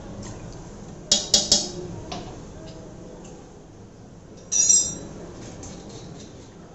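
A steel spoon clinks three quick times against a stainless-steel mixer jar about a second in, tipping vanilla essence in among the eggs. A single ringing metal clink follows a few seconds later.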